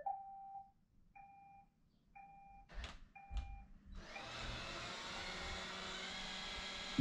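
A robot vacuum beeps a short two-tone chirp about once a second, with two sharp clicks a little before the 3-second mark. About 4 seconds in its motor starts suddenly and runs with a steady, noisy whir.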